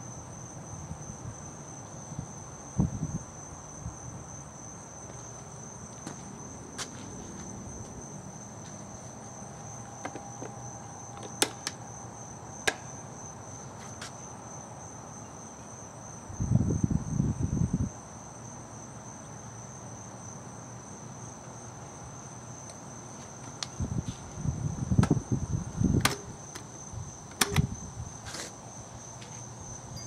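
Insects trilling steadily at a high pitch over the quiet, steady hum of a Panasonic F-1208 12-inch oscillating table fan running. Brief low rumbles come through about halfway and again near the end, with a few faint clicks.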